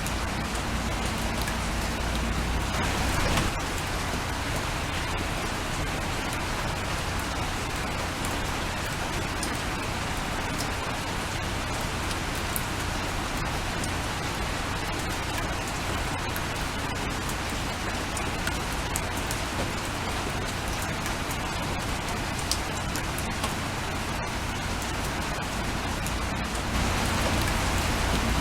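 Steady rain falling: an even hiss with scattered drop ticks. It swells briefly about three seconds in and again near the end.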